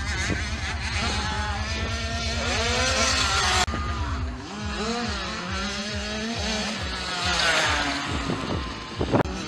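Engines of small youth motocross bikes revving up and down as they race, several pitches rising and falling over one another.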